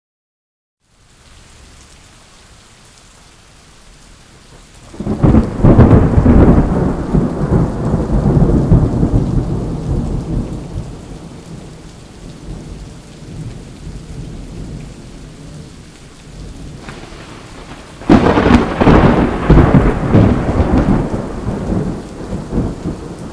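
Thunderstorm: steady rain starts about a second in, with two loud claps of thunder about thirteen seconds apart, each rumbling away over several seconds.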